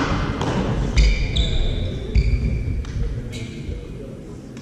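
Badminton doubles play on court: sharp racket hits and players' feet thumping, with shoes squeaking on the court floor after the first couple of hits.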